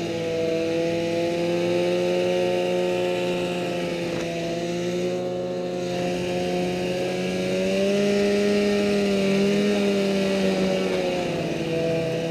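Snowmobile engine running steadily under way across snow. Its pitch rises a little about eight seconds in and drops back near the end.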